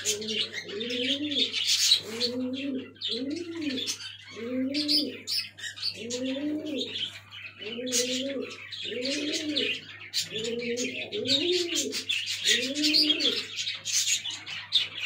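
Pigeon cooing over and over, about one coo a second, each coo rising and then falling in pitch. High bird chirping runs on underneath throughout.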